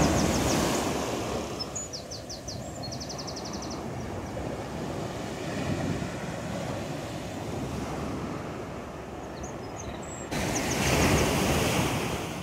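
Sea waves washing and breaking against a stone seawall, with a louder surge of surf near the start and again from about ten seconds in. A small bird gives short, rapid high trills a few times over the surf.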